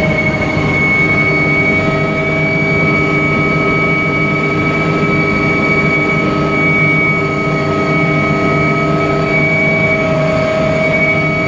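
Mil Mi-2 helicopter's twin turboshaft engines and rotor running steadily, with a constant whine of several steady tones over a low rumble.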